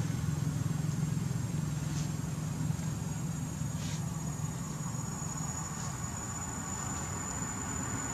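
Steady low hum of an engine running, with a thin high steady whine that grows louder in the second half.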